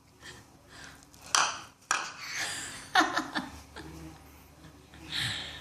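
A baby's short breathy vocal sounds and little squeals, a string of separate bursts with a few sharp, abrupt starts, the loudest about a second and a half in and at three seconds.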